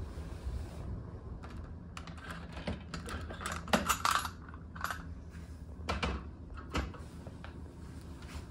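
Plastic pet carrier's wire door being unlatched and swung open: a run of light clicks and rattles, loudest about four seconds in, with a couple more clicks a few seconds later.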